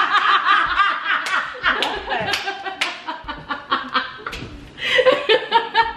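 Two women laughing hard in quick, high-pitched bursts, with a few sharp smacks among the laughter.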